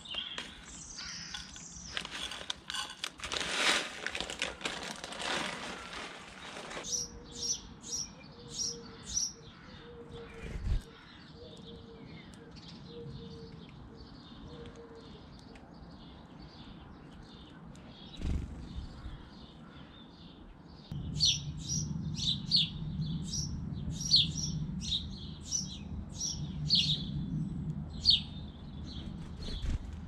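Bird seed scattered by hand onto a board, with a plastic bag rustling, for the first several seconds, then house sparrows chirping: short, high chirps about two a second. A low steady hum comes in about two-thirds of the way through.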